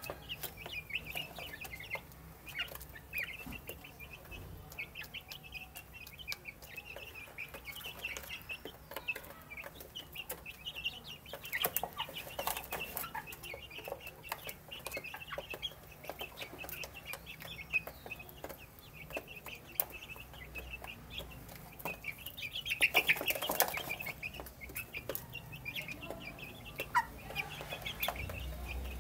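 Young chickens peeping and clucking steadily as they feed, with many small sharp clicks of beaks pecking at the feeder and the wooden floor. A louder flurry of calls comes about three-quarters of the way through.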